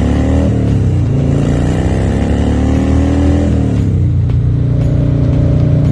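Harley-Davidson Dyna Street Bob V-twin engine accelerating under a rider: revs climb, drop at an upshift about half a second in, climb again, drop at a second upshift, then settle into a steady cruise. Wind rushes over the foam-muffled helmet camera.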